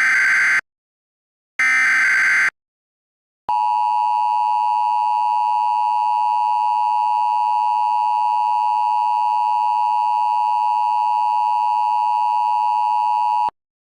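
Emergency Alert System header: two short, buzzy data bursts about a second apart, then the steady two-tone EAS attention signal, held for about ten seconds and cut off abruptly.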